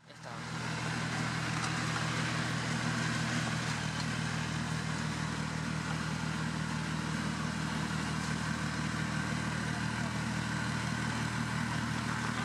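Massey Ferguson 147 tractor engine running steadily under load as it pulls a tine cultivator through tilled soil, with an even, unchanging note throughout.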